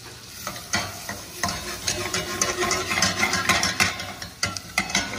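A spatula stirring and scraping diced andouille sausage, vegetables and flour around a stainless-steel saucepan as a roux forms, with frying sizzle underneath. Repeated, irregular scraping strokes start about half a second in.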